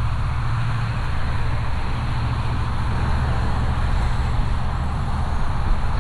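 A car driving: a steady low rumble of engine and road noise with a hiss of tyres and wind above it.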